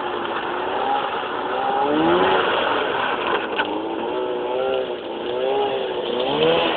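Snowmobile engine running, its note rising and falling several times as the throttle is opened and eased off.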